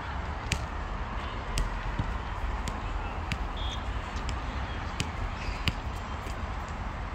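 Walking footsteps, a sharp tap about every two-thirds of a second, over a steady low rumble.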